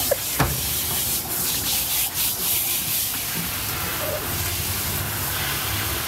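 Water from a garden-hose spray nozzle hissing steadily as it sprays onto wet dogs and the floor of a dog-wash tub.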